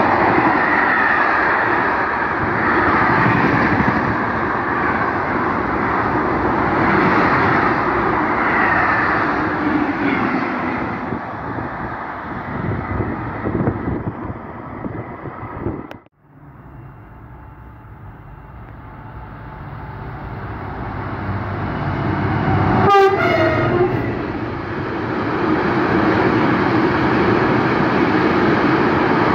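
Freight trains passing: a train of container wagons rumbles and clatters past over the rails and fades away. After a cut another freight train approaches, gives a short horn blast a little past the middle, and its box wagons rumble past close by.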